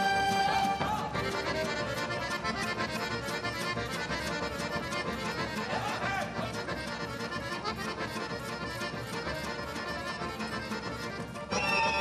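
Accordion-led folk orchestra playing a fast traditional Serbian dance tune over a steady beat. Near the end a new, louder passage starts with a high held melody line.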